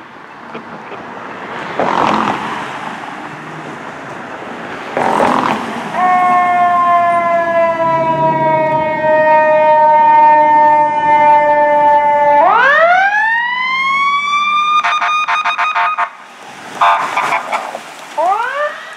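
Siren of a fire department paramedic squad as it pulls out: one long wail that slides slowly down, then sweeps quickly back up. Near the end come rapid pulsing stretches of about eight beats a second, and a fresh rising wail begins. Two short loud blasts come before the siren starts.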